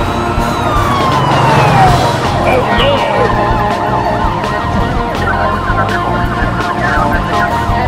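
A police siren in a fast rising-and-falling yelp, repeating several times a second from about two and a half seconds in, over background music. A single falling tone sounds in the first two seconds.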